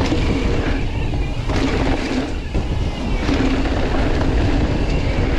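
Wind rushing over an action camera's microphone, with rumble from a mountain bike rolling fast over dirt jumps. The noise is loud and steady.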